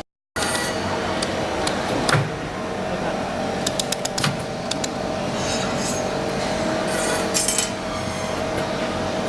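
Steady machine hum with two faint steady tones, over which come scattered sharp clicks and clinks, more of them together near the end; the sound drops out completely for a moment at the very start.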